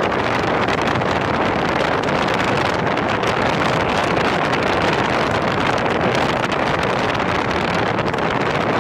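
Steady wind rushing over a bike-mounted microphone, mixed with a BMW motorcycle riding up a gravel road at an even pace.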